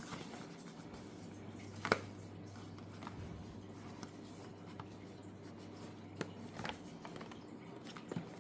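Scattered light clicks and taps of a charger and its packaging being handled, the sharpest about two seconds in, over a steady low hum.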